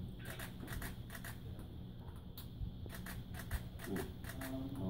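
A run of small, irregular, sharp clicks and light rustles.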